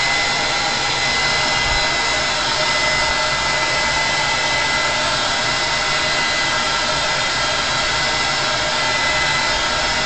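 Hand-held hair dryer running steadily, a constant rush of air with a high whine, blowing over wet watercolour swatches to dry the paint quickly.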